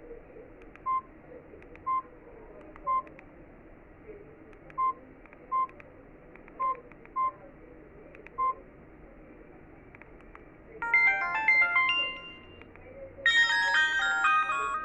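Samsung E1200 feature phone's speaker: eight short identical keypad beeps at uneven intervals, then two short melodic notification tones of quick rising and falling notes, each about a second and a half long, the second brighter and higher.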